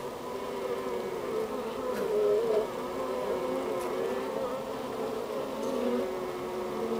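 Honeybees humming close inside the hive: a steady drone of many bees on the comb, several overlapping pitches wavering, swelling slightly about two seconds in.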